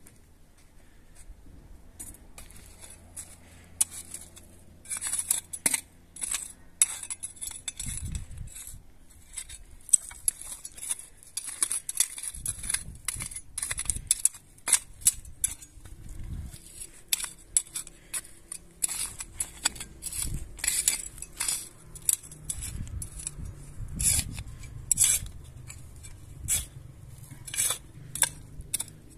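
Small metal hand spade chopping and scraping into dry, stony soil, with many quick sharp strikes and clinks of the blade, beginning about five seconds in.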